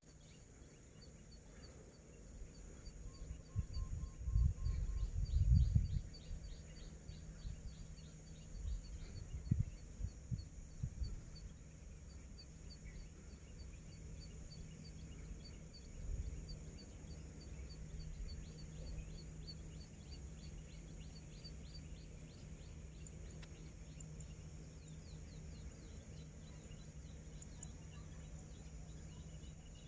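Outdoor ambience: low gusts of wind buffeting the microphone, loudest about four to six seconds in. Over them runs a long run of rapid, evenly spaced high chirps from a small animal calling, about four or five a second.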